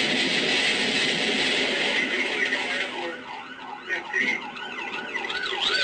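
A loud, even rushing noise for the first half, then a police siren yelping in quick rising-and-falling sweeps from about three seconds in, getting louder toward the end.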